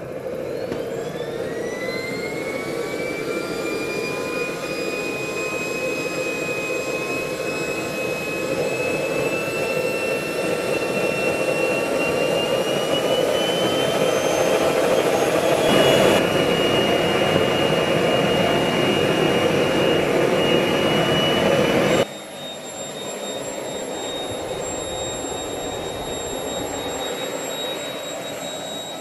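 Kerosene-fuelled model jet turbine running on a test bench: a high whine that climbs quickly as it spools up, then keeps creeping higher and steps up about halfway through, over a loud rushing exhaust. About two-thirds of the way through the sound changes abruptly to a quieter, steady, higher whine.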